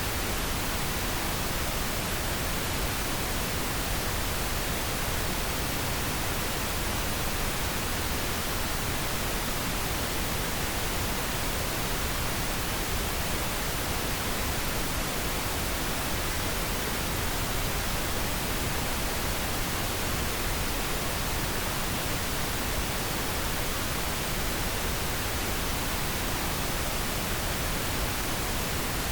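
Steady pink noise: an even, unchanging hiss spread from the lows to the highs, with no events or changes.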